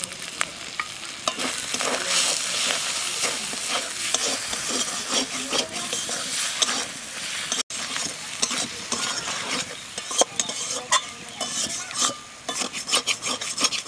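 Spice masala frying in oil in an aluminium kadai: a steady sizzle while a metal spatula stirs and scrapes it, with frequent sharp clicks of the spatula against the pan. The sound cuts out for a moment a little past halfway. This is the masala being fried down (kashano) after the ground spices have gone in.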